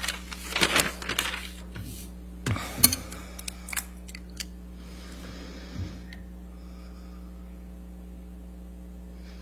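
Paper and an envelope being handled close to a bench microphone: rustling and several sharp clicks over the first few seconds, then a steady low electrical hum.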